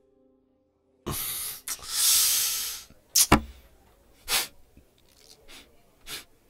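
A man breathing heavily and sniffing back tears, starting about a second in: two long, loud breaths, then several short, sharp sniffs that grow fainter.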